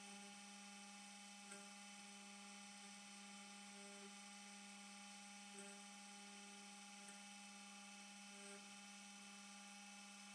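Carvera Air desktop CNC spindle running steadily with a faint, even whine while a fine engraving bit machines a relief into aluminium, with a few faint brief blips.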